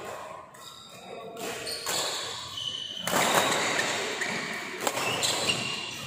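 Badminton rackets striking a shuttlecock in a doubles rally: several sharp hits at uneven intervals, echoing in a large hall, over background hall noise that gets louder about halfway through.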